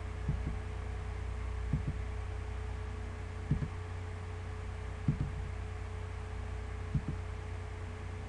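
Steady low electrical hum with a thin steady tone above it, and five soft double clicks at uneven intervals of roughly one and a half to two seconds: a computer mouse button pressed and released, each click stepping the temperature up by one degree.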